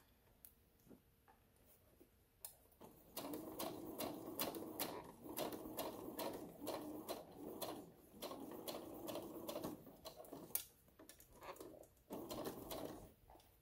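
Electric home sewing machine stitching a seam in several runs of rapid, even stitches, with short pauses between runs. The runs begin about three seconds in, after a few light clicks of the fabric being handled.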